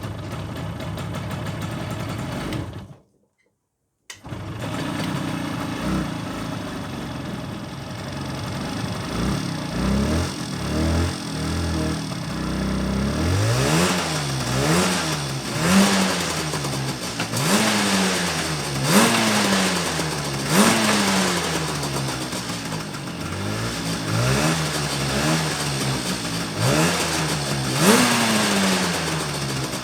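1975 Suzuki GT185's two-stroke twin engine running. From about halfway it is revved again and again, each blip rising and falling back to idle.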